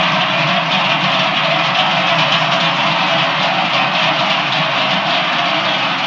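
Many cowbells clanging together in a dense, steady jangle as a bell-wearing cattle herd walks past.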